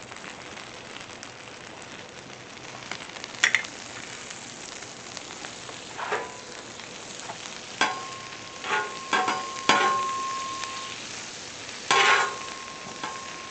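Hash browns and sausage sizzling steadily on a Blackstone flat-top griddle, with butter going down for the second side. Several short scrapes and clinks of a metal spatula on the steel cooktop, some with a brief ringing tone, come about three and a half, six, eight to ten and twelve seconds in.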